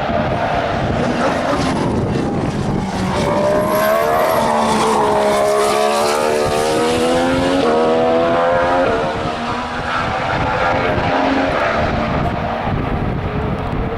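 2014 Formula One car's 1.6-litre turbocharged V6 accelerating past, its engine note climbing and dropping sharply at two upshifts a little past halfway.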